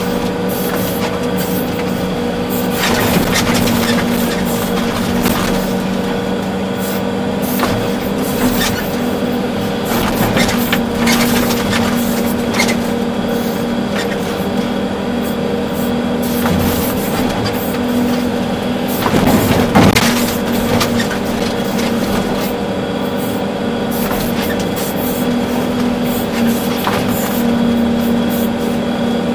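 Volvo EC380D excavator heard from inside its cab: the diesel engine runs steadily under working load. Irregular knocks and clatters come through as it digs and loads, the loudest about twenty seconds in.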